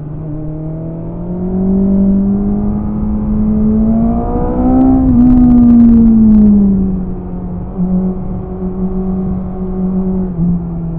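BMW S1000RR's inline-four engine on its stock exhaust, heard onboard while riding: the engine note climbs steadily in pitch for about five seconds under acceleration, then drops back and settles to a steadier cruise.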